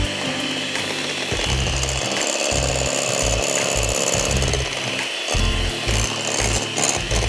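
Electric hand mixer running steadily, its twin beaters whisking eggs and sugar into a pale froth in a glass bowl.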